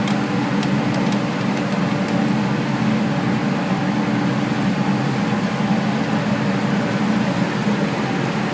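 Steam boiler plant running with a steady, loud roar and low hum, with a few light clicks in the first second or so.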